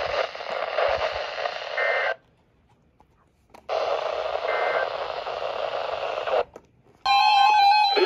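Weather alert radio hissing with static, with faint tone fragments in the hiss; the sound cuts to dead silence twice. Near the end a burst of electronic alert tones begins.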